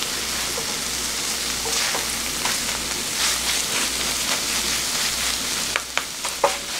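Fried rice with chopped perilla leaves sizzling in a nonstick frying pan as it is stirred and tossed with wooden spatulas, a steady hiss. Near the end come a few sharp clicks of the wooden utensils against the pan.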